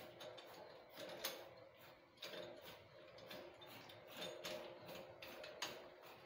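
Faint, irregular metallic clicks and taps from a satellite dish's mounting bracket being handled and tightened on its pole.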